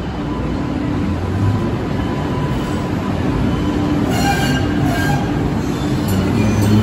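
Kinki Sharyo Type 7 light-rail car coupled to a Type 8, running into an underground station with a steady rumble that grows louder as it nears. The wheels squeal briefly on the curved track about four seconds in.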